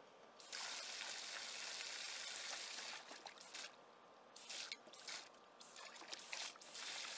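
Water splashing as a German Shepherd puppy jumps into a shallow plastic kiddie pool and tramples about in it: a long splash about half a second in, then shorter splashes on and off.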